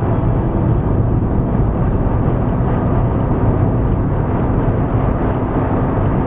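Steady road and engine noise inside a Fiat Uno at highway speed: an even low rumble with a faint steady hum.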